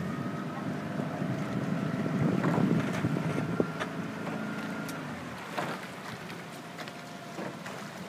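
Wind rumbling on the microphone over water around a rowing shell, with a few sharp knocks as the crew's oars turn and shift in their oarlocks. A faint steady hum runs underneath and fades about five seconds in.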